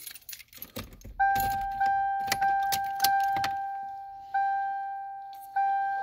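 A bunch of keys jangles and clicks as a key goes into the ignition of a 1998 Toyota Camry. About a second in, the car's warning chime starts dinging: four quick dings, then slower ones roughly every second, the reminder that the key is in the ignition with the driver's door open.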